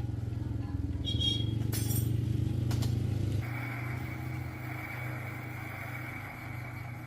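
A vehicle motor running with a steady, low, rapidly pulsing hum. A little over three seconds in, the hum drops back and a steady high whistle with a hiss comes in alongside it.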